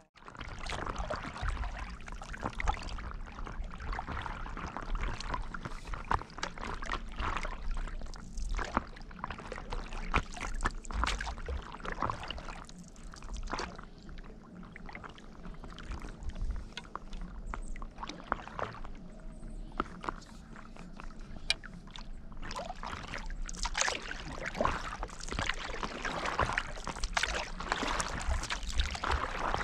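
Stand-up paddleboard paddle dipping and pulling through calm lake water in irregular strokes, with splashing and trickling of water off the blade and around the board.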